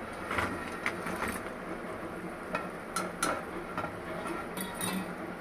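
A wire spider strainer and a wooden spatula knock against a metal kadai as fried kaja pastries are tipped into sugar syrup and turned. About a dozen irregular clinks and taps sound over a steady low background noise.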